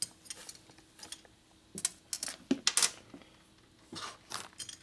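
Small steel screws and washers clinking and rattling as they are picked out and handled by hand, in two short clusters of light clicks: one about two seconds in and one near the end.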